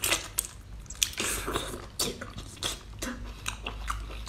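A person biting into and chewing a whole octopus: close-up eating noises made of irregular sharp clicks, several a second.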